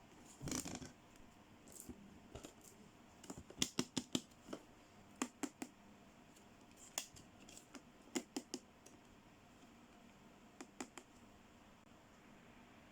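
Small plastic toy pieces being handled and set down. A brief scratchy rustle comes first, then sharp clicks and taps in small clusters of two to five.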